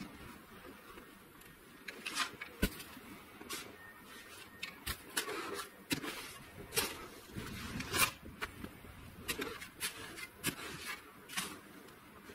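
Hand snow shovel cutting into and scraping through packed roof snow: a string of short, irregular crunches and scrapes, about one or two a second.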